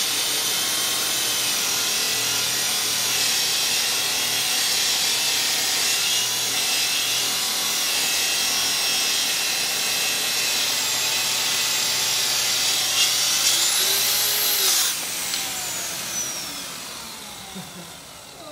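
Festool-style plunge-cut track saw running under load as it rips lengthwise through a wide board, with the dust extractor pulling on the hose. About fifteen seconds in, the motor's whine rises as the blade comes free of the cut. It then stops and winds down with a falling whine.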